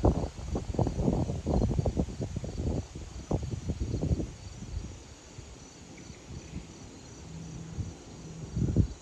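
Wind buffeting the microphone in irregular gusts, heaviest for the first four seconds, easing off in the middle and picking up again near the end.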